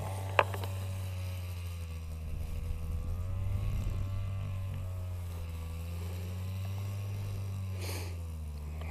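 An engine running steadily, its pitch drifting slowly up and down, with a single sharp click about half a second in.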